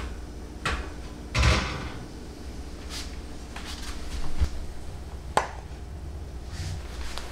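Scattered knocks and clunks of kitchen work, about five in all, over a low steady hum. The loudest is a muffled thud about a second and a half in, and there is a sharp click about five and a half seconds in.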